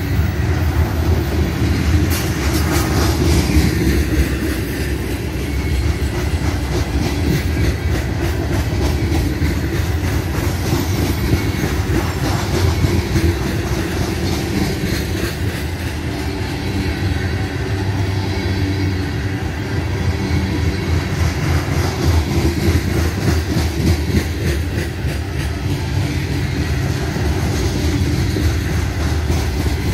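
Covered grain hopper cars of a freight train rolling past close by: a steady low rumble with the wheels clicking over the rail joints.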